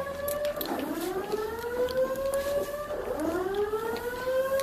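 Simplex fire alarm voice evacuation system sounding its evacuation tone: a rising whoop that sweeps up in pitch over about two seconds, drops back and sweeps up again, twice. It is the signal to evacuate the alarm floors.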